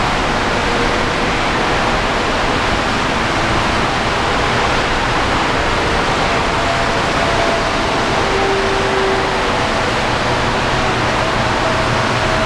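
Steady rushing noise of heavy rain, with faint steady tones of distant jet engines from an Airbus A380 rolling out on the runway after landing.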